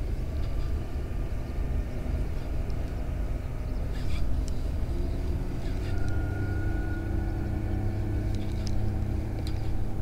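Steady low rumble with a faint, even engine-like hum, as from a distant motor, and a few light clicks.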